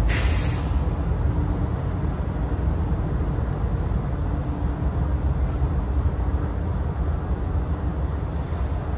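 CSX diesel freight locomotive running with a steady low rumble, and a short burst of hissing air right at the start.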